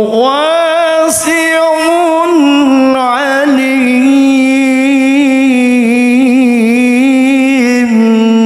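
A man's voice in melodic Quran recitation (tilawah), amplified through a hand-held microphone: one long held melismatic phrase whose pitch steps up early on and then holds with quick ornamental wavers, breaking off at the very end.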